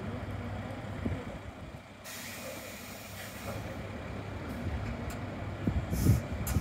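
Diesel city bus idling with a low rumble. About two seconds in, a loud hiss of released compressed air lasts over a second, and another short air hiss comes near the end: the air system venting as the bus gets ready to pull away.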